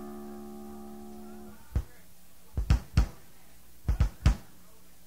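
A held electric guitar note rings through the amp and is cut off about a second and a half in. Then come about seven loud drum hits in small clusters, scattered between songs rather than played as a beat. A steady amp hum runs underneath.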